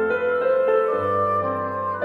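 Instrumental background music with soft piano-like notes.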